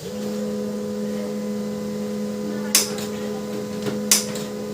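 Canon LBP 2900 laser printer running with a steady hum, after its noise fault has been repaired. Sharp clicks come about every second and a half, twice in the later part.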